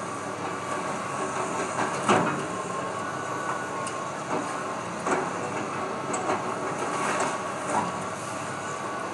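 Excavator demolishing a wood-frame house: a steady machine rumble with repeated cracks and crunches of breaking timber and falling debris, the loudest about two seconds in.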